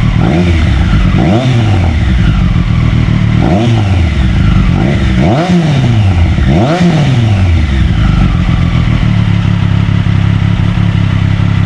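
Triumph Street Triple RS 765cc inline three-cylinder engine, breathing through a Zard slip-on exhaust with its dB-killer baffle fitted, idling and blipped about five times in the first seven seconds, each rev rising and falling back quickly, then settling into a steady idle.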